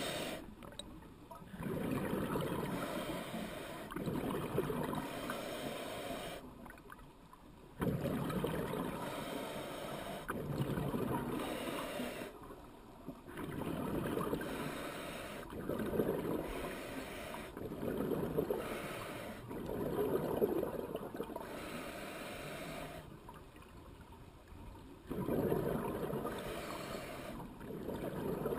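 A scuba diver's regulator breathing, heard underwater through the camera housing: bursts of exhaled bubbles several seconds long, with short quieter gaps between them as the diver inhales.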